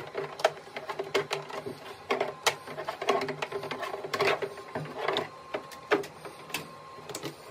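Power cord being unwound from the cord wrap on a plastic air mover's housing: irregular taps, knocks and rubbing as the cord and plug hit and drag across the plastic shell, over a faint steady hum.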